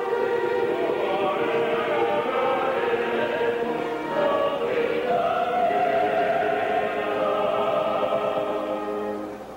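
Chamber choir (madrigal) singing a slow sacred piece in long held chords, the chord changing midway and the sound dropping away near the end, heard through an old VHS tape recording.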